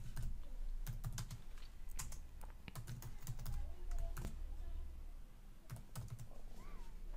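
Keystrokes on a computer keyboard: slow, irregular typing, one key click at a time.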